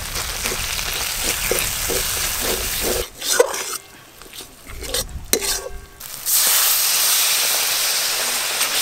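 Spice paste frying in oil in a metal karai, a spatula scraping and stirring it through the sizzle. About six seconds in, water splashed into the hot pan sets off a much louder, steady hiss.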